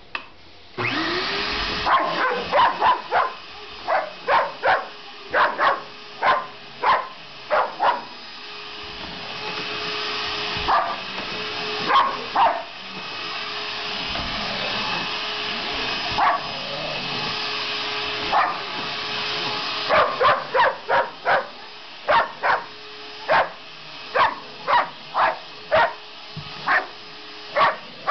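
A small red stick vacuum cleaner switches on just under a second in, whines up to speed and then runs steadily. A dog barks at it over and over in short, sharp barks, in runs, with a lull of a few seconds near the middle.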